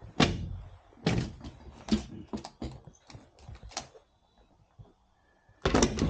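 A series of sharp knocks and clunks, about eight in the first four seconds, then a louder cluster of clunks near the end, like fittings or a cabinet door on the boat being handled.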